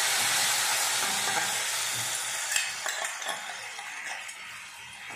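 Water poured into a hot wok sizzling over the crushed coconut and spice mixture while a steel spoon stirs it. The hiss dies away gradually over the last seconds, with the spoon clinking against the pan about two and a half seconds in.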